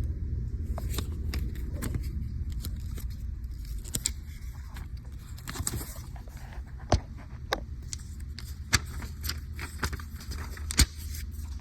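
Scattered sharp clicks and light knocks from an Allen key and mount parts being handled while a Quad Lock stem mount is tightened, over a steady low rumble that eases after the first few seconds.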